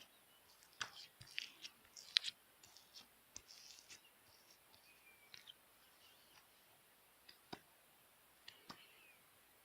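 Firm slime being pressed and squeezed by hand, giving small sticky clicks and crackling pops. The clicks come thick in the first two seconds or so, then only now and then.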